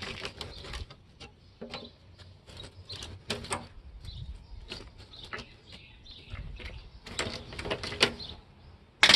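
Nippers biting and prying at an air-conditioner's metal coil for scrap: a run of sharp metal clicks and snaps with a few short squeaks, bunched near the start, about three seconds in and again around seven to eight seconds.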